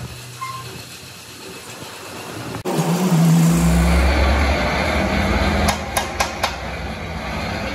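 A steady engine rumble, loudest just after the first third, with four quick light hammer taps on the metal header of a truck radiator late on.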